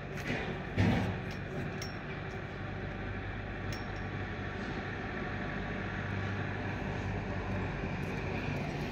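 Steady low mechanical hum, growing slightly louder, with a sharp knock about a second in and a few light clinks.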